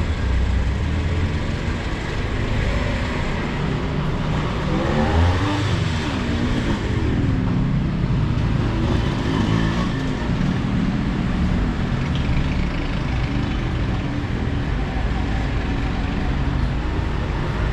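City street traffic: motor vehicle engines running and passing close by, a steady rumble throughout.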